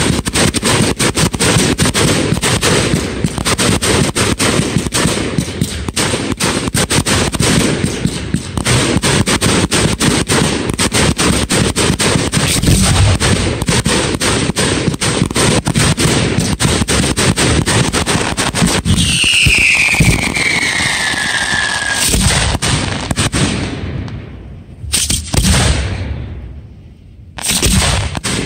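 Fireworks: dense, rapid-fire bursts and crackling volleys, with a falling whistle about two-thirds of the way through, thinning to a few separate booms near the end.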